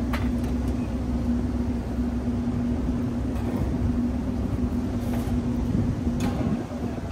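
Steady mechanical hum with a low rumble, typical of rooftop air-conditioning equipment running, with a few light clicks and knocks from the condenser fan motor and blade assembly being handled.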